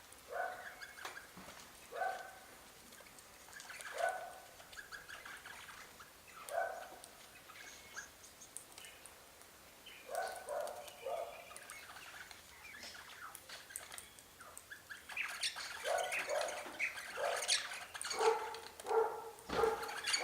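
Birds at a feeder calling: short calls repeated about every two seconds, coming faster and overlapping in the last few seconds.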